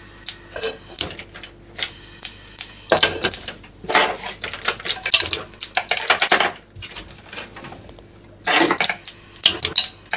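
Bursts of rapid clicking and metallic clatter as a frying pan is set on a gas stove's grate and the burner is lit with its clicking igniter. The clicks are thickest a few seconds in, with a second short burst near the end.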